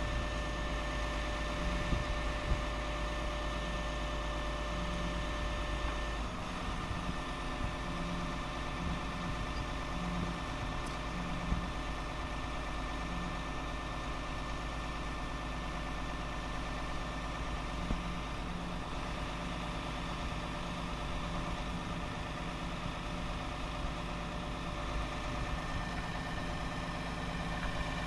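The PACCAR PX-8 8.3-litre diesel of a 2012 Peterbilt 337 crane truck idling steadily while its hydraulic crane is being stowed. A steady tone runs over the idle and changes character about six seconds in, as the crane's hydraulic load shifts.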